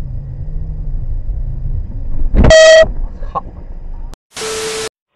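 Car horn sounding one short, very loud blast about two and a half seconds in, over the low steady rumble of an engine and traffic heard from inside a car. Near the end the sound drops out and a brief burst of hiss follows.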